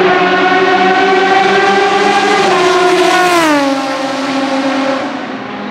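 Aston Martin Vantage GT3's 6.0-litre V12 on open exhaust at full throttle, held at steady high revs as it approaches. The note falls sharply about three seconds in as the car goes by, then fades as it pulls away.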